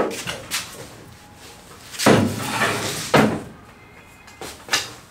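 Wooden oars knocking against an aluminum boat hull as they are handled, with several separate clunks, the loudest about two seconds in.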